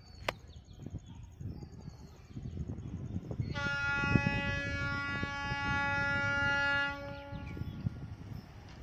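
An approaching diesel locomotive sounds one long horn blast of about three and a half seconds, starting about three and a half seconds in and cutting off near seven seconds. A low rumble runs beneath it.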